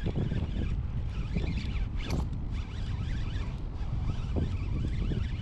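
Wind rumbling on the microphone, with scattered short rasping and crackling sounds, the strongest about two seconds in.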